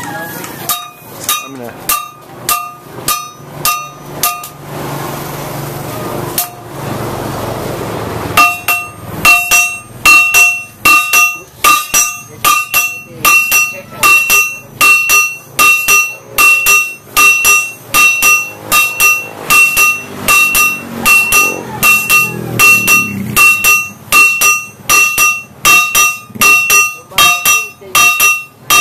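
Hand hammers forging a hot leaf-spring steel bolo blade on an anvil: steady blows about two a second, each with a bright metallic ring. After a few seconds of strikes there is a pause of about four seconds, then the hammering resumes louder and keeps an even beat.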